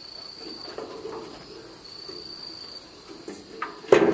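Cricket trilling in a thin high tone, in stretches of about a second with pauses between, over faint handling noise. A single loud knock comes near the end as the diesel engine and crusher are handled.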